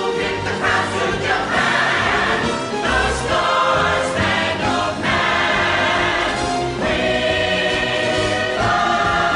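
A chorus singing an upbeat patriotic show tune with orchestra accompaniment.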